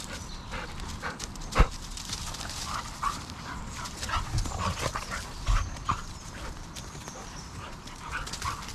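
A dog sniffing and snuffling close by, in quick short bursts, while it searches the ground. A sharp knock sounds about a second and a half in, and there are a couple of dull thumps later.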